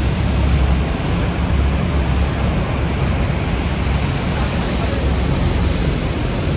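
Niagara Falls: a loud, steady rush of falling water, with an uneven low rumble underneath that swells and eases.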